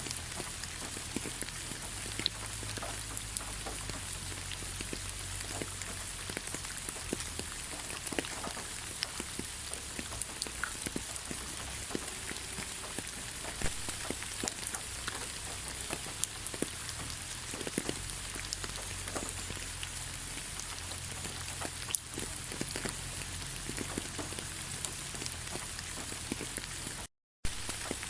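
Steady light rain falling, an even hiss dotted with many separate drops ticking on surfaces. The sound cuts out completely for a moment near the end.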